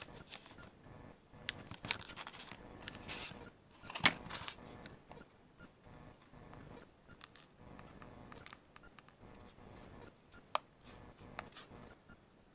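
Small knife blade cutting and scraping into a thin wooden board from a fruit crate: intermittent scratchy strokes and sharp clicks, the loudest click about four seconds in.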